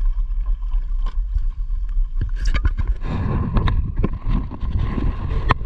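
Wind rumbling on the microphone and water against the hull of a small open boat at sea, with a run of sharp knocks and thumps starting about two seconds in and growing louder and busier toward the end.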